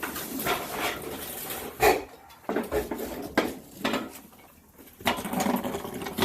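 Irregular knocks, clatter and shuffling handling noise, with a quieter lull past the middle.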